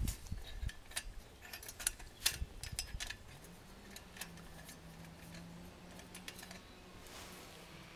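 Light metallic clicks and taps of a bent wire pan support being hooked onto the rim of a stainless steel wood gas camp stove, most of them in the first three seconds.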